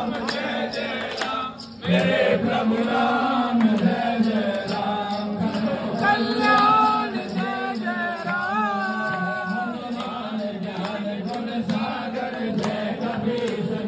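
A group of men chanting a Hindu devotional hymn together, with one voice leading on a microphone and a light regular beat keeping time.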